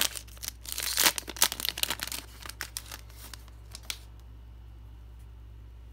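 Foil wrapper of a Donruss Optic basketball card pack crinkling and tearing as it is opened by hand, in quick irregular bursts that stop about four seconds in.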